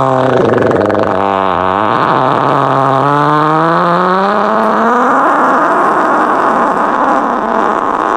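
A long, loud, buzzing fart sound. Its pitch drops at the start, wavers, then climbs between about three and five seconds in, and it turns into a rougher, raspier noise for the last few seconds.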